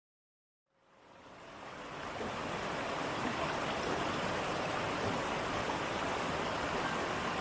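Waterfall's steady rush of falling water, fading in from silence over the first two seconds or so.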